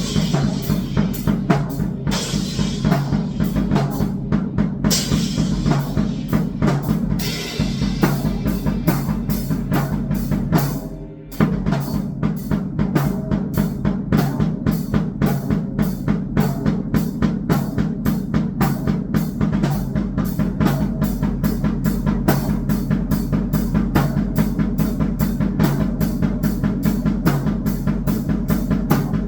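Drum kit played in a fast, even pattern of strikes, with cymbals ringing through the first several seconds and a short break in the playing about 11 seconds in.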